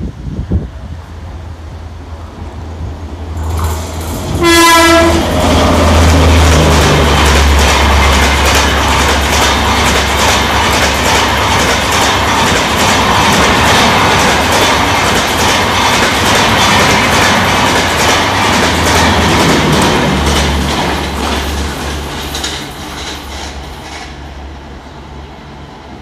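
Indian Railways WAP7 electric locomotive and its express passenger train passing a station at speed without stopping. There is a short horn blast about four seconds in, then the loud, rhythmic clatter of the coach wheels over the rail joints for about fifteen seconds, fading as the train draws away.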